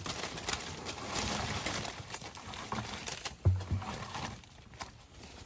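Freshly picked tangerines and leaves tipped from a picking bucket into a plastic crate: a rustling tumble of fruit with dull knocks, the loudest thump about three and a half seconds in, dying away near the end.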